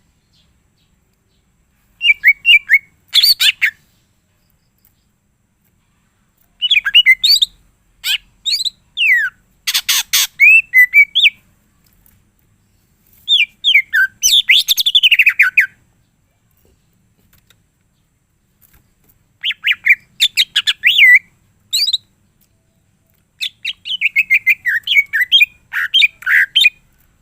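A cucak ijo (green leafbird) singing in loud bursts of rapid, varied chirps, whistled glides and a harsh rattle, packed with mimicked phrases. Five song phrases come in turn with short silent gaps between them.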